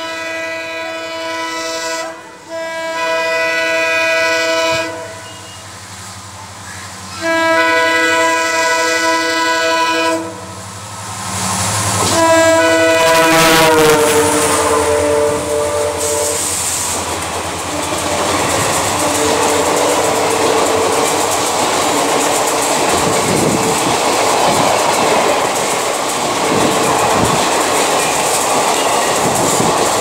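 WDG4 diesel locomotive's air horn sounding a chord in four long blasts: two close together, a pause, a third, then a fourth whose pitch drops as the locomotive passes. The coaches of the empty rake then roll by with steady wheel clatter over the rail joints.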